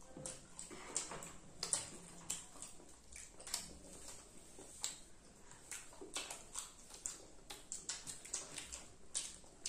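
Close-miked eating sounds of children chewing french fries: an irregular run of wet mouth smacks and clicks, several a second.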